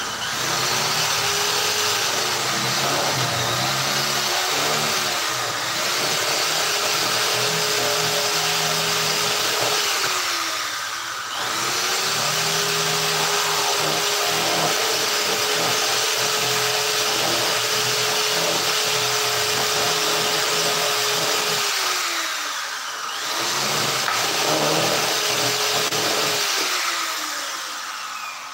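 Electric power tool running under load on plywood. Its motor whine sags and recovers as it works, easing off briefly about 11 and 23 seconds in, and it dies away at the end.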